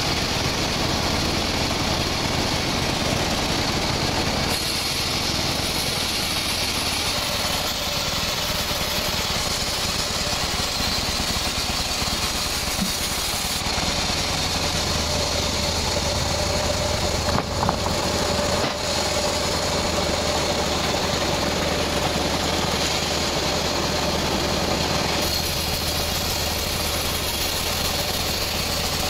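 Vertical band sawmill running steadily, its blade cutting teak logs, with a low hum from the drive under the blade noise. A couple of short knocks come a little past the middle.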